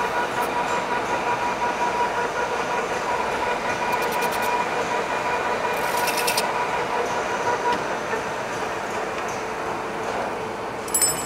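Metal lathe running at one constant speed, its chuck spinning while a steel washer's outer edge is chamfered: a steady mechanical rattle with a whine that drops away about two-thirds of the way through. Two short runs of rapid high clicking come about four and six seconds in.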